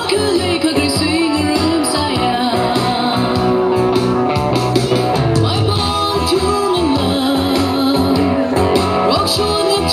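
Music: a song with a singing voice over guitar accompaniment, playing continuously.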